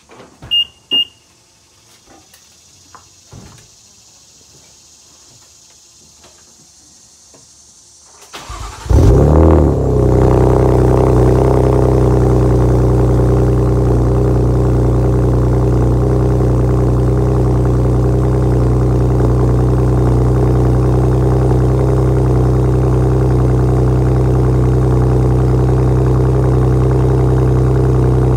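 A few thuds and clicks, then a cold start of a 2015 BMW M4 (F82): its S55 twin-turbo straight-six, fitted with catless downpipes and an RPI GT resonated catback exhaust, cranks briefly and flares loudly about nine seconds in. It then settles into a steady cold idle.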